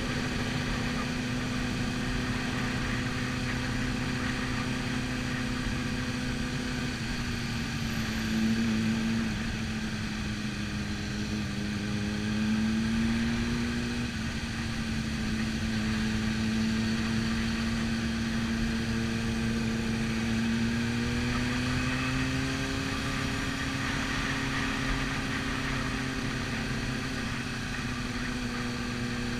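Sport motorcycle engine heard onboard, running at low steady revs at parade pace, with wind noise. Its note sags a little about eight seconds in and rises again past twenty seconds.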